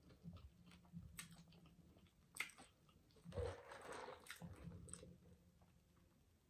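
Faint close-up crunching and chewing of a raw celery stick dipped in ranch dressing, with a few sharp crisp snaps spread over the first five seconds.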